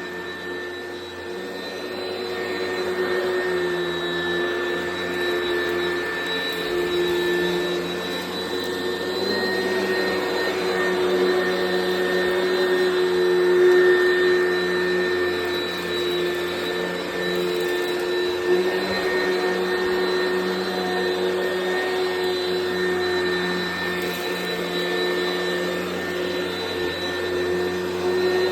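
Oreck XL Commercial upright vacuum cleaner running steadily while vacuuming, a constant motor whine over airflow noise, its loudness swelling and easing slightly.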